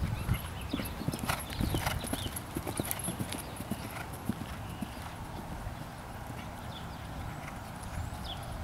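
Hoofbeats of a horse cantering on a grass jumping course, an uneven run of dull thuds. They are louder over the first few seconds, then fainter as the horse moves away.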